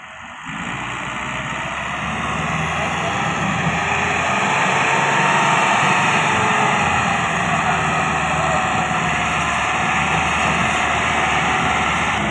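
Tractor diesel engine of an IMT 577 Bull Power, labouring under full load as it pulls a heavily overloaded sugarcane trolley. It opens up about half a second in, then climbs over the next few seconds to a steady, loud working note.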